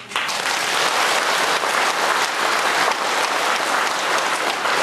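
Audience applauding, a dense steady clapping that starts at once as the speech stops.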